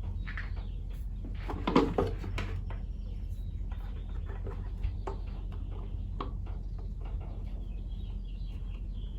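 Handling noises of an air filter being fitted into a motorcycle's plastic airbox: light clicks and rubbing, with a short cluster of louder knocks about two seconds in, over a steady low hum.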